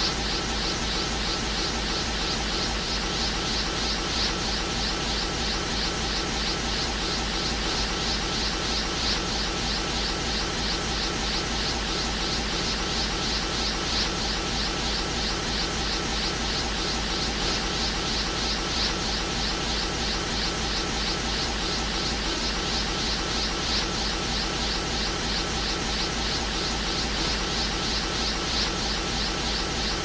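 Anime-style energy aura sound effect looping steadily: a rushing, fast-flickering hiss over a low hum, with no burst or change in intensity.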